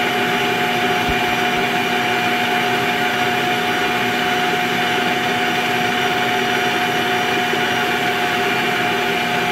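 Electric stand mixer running steadily, its balloon whisk beating egg whites with sugar and cornflour in a stainless steel bowl: a steady motor whine with several held tones. The whites are foaming but have not yet reached stiff peaks.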